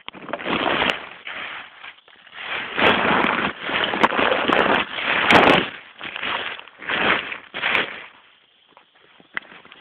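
Rustling and rubbing on the phone's microphone as it is handled and moved about: loud, irregular bursts of scraping noise with a few clicks, fading near the end.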